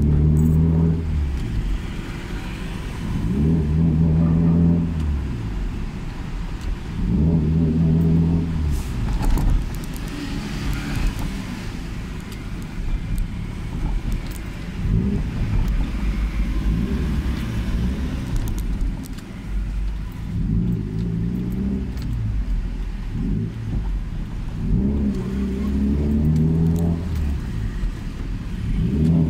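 Toyota Celica ST205's turbocharged 3S-GTE four-cylinder engine and freshly repaired exhaust, heard from inside the cabin, pulling up in pitch and easing off again about seven times in stop-and-go driving.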